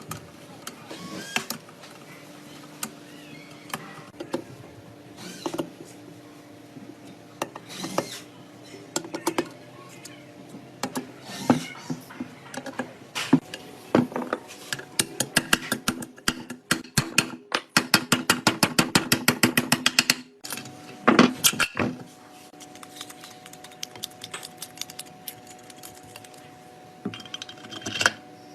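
Hand tools clicking and knocking on metal motorcycle parts, with a fast run of even clicks, about seven a second, in the middle. A faint steady hum sits underneath.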